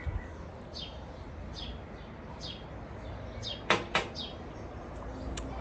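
A bird calling with short falling chirps about once every second, and two sharp knocks in quick succession a little past halfway.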